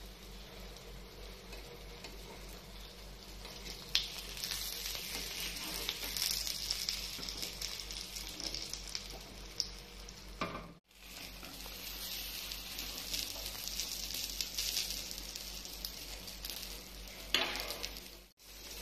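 Beaten eggs frying in a nonstick pan on a gas burner: a steady sizzle that grows louder about four seconds in, with a metal spatula scraping under the omelette. The sound cuts out briefly twice.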